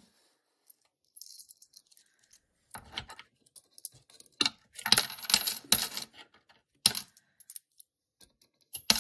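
Australian coins clinking as they are dropped by hand into a wooden money box. A few scattered clinks come first, then quick runs of clinks from about three seconds in, busiest around the middle.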